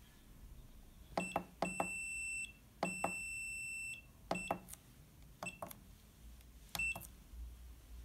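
Keypad buttons on a DDCSV1.1 CNC controller being pressed several times. Each press gives a click and a high electronic beep from the controller, and two of the beeps are held for about a second.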